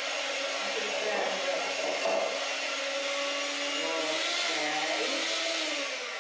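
Electric hand mixer running steadily with its beaters in a bowl, whisking a batter, then winding down at the very end.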